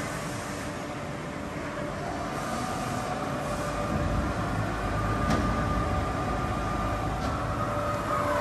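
Scharmann Heavycut 3.3 floor-type boring machine running, its heavy rotary table moving on the floor ways: a steady mechanical hum with whine tones. A deeper rumble builds from about four seconds in, with a single sharp click about five seconds in.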